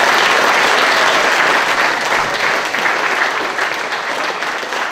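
Hall audience applauding, loudest for the first couple of seconds, then slowly dying away.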